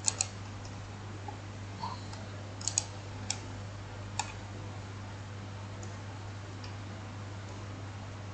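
Computer mouse clicking: a quick double click at the start and another a little under three seconds in, then two single clicks about a second apart, over a steady low hum.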